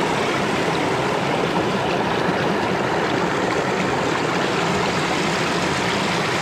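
Small creek rushing and splashing over rocks close by, a steady, unbroken water sound.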